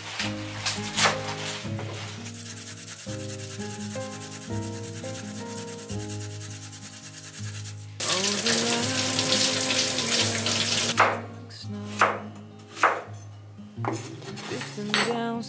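Kitchen knife striking a wooden cutting board as leafy greens are chopped, then a steady rubbing hiss. About eight seconds in, tap water suddenly runs and splashes over a carrot into a stainless steel sink for about three seconds, stopping abruptly, followed by a few separate knife strikes slicing the carrot on the wooden board.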